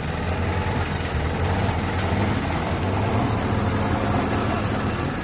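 Tractor engine running steadily, a low even drone with no change in speed.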